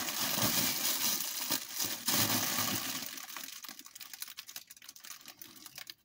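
Plastic grow bag of pellet substrate crinkling and rustling as gloved hands squeeze excess air out of it. Dense crackling for about three seconds, then sparser, fainter crinkles.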